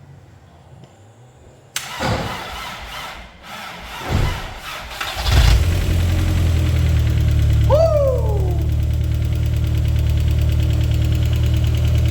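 Rebuilt VW 1.8T turbocharged four-cylinder engine being cranked by the starter for about three seconds before it catches and settles into a steady idle. A brief falling whistle sounds a couple of seconds after it catches. Some valve tappets (hydraulic lifters) tick while they refill with oil, one of them newly replaced after a damaged valve on cylinder 3.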